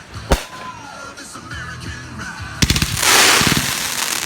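Consumer fireworks going off: a single sharp bang, then about two and a half seconds in a rapid string of cracks that swells into a dense, loud crackle.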